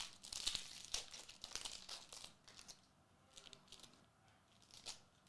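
A trading card pack wrapper being torn open and crinkled, in a dense run of rustling over the first couple of seconds, then a few lighter crinkles.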